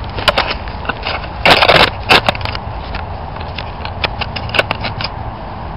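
Dry wood or kindling being crunched and snapped by hand: a run of sharp cracks, with a longer crunch about a second and a half in.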